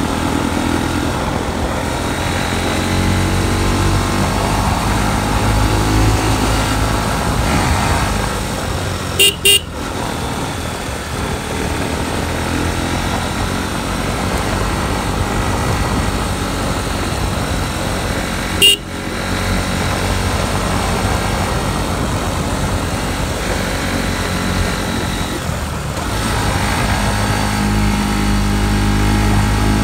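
Motorcycle engine running under way, its note rising and falling. A horn gives two short toots about nine seconds in and one more toot about eighteen seconds in.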